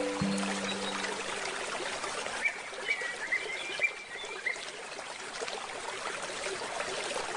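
Trickling stream water running steadily, with a small bird chirping in a short run of quick calls in the middle. A last handpan note rings out at the start.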